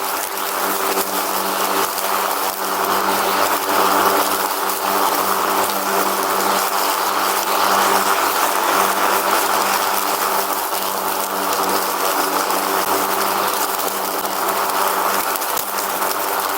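Riding lawn mower running steadily under way: an even engine hum with a broad rushing noise over it.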